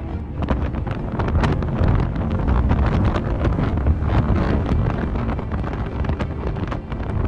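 Storm-force wind hitting the microphone: a loud, gusting low rumble of wind noise with frequent sharp crackles.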